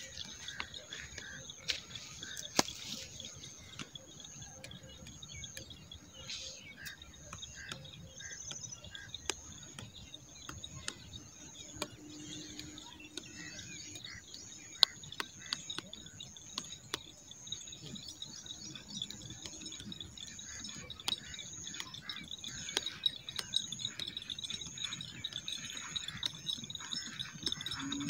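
Insects chirring steadily in a high, pulsing trill, with a few bird chirps and small scattered clicks.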